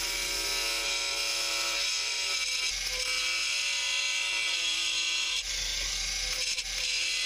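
Bosch GWX 18V-15 SC cordless mini angle grinder at its lowest speed setting, running steadily with a multi-material cutting disc as it cuts through a 50 mm PVC pipe. The high whine dips briefly twice near the end.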